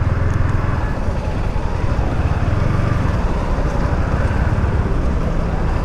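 Yamaha MT-15 V2's single-cylinder engine running steadily on the move, with road and wind noise.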